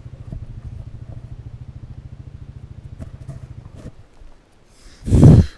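A small single-cylinder engine idling with an even, fast low pulse, which cuts off abruptly about four seconds in. Near the end comes one loud, brief rushing thump.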